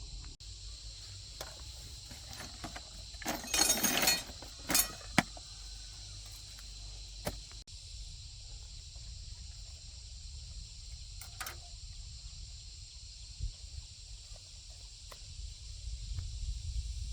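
Metal clinking and scraping, loudest in a cluster about three to five seconds in, with a few single clicks afterwards, over a steady high chirring of insects.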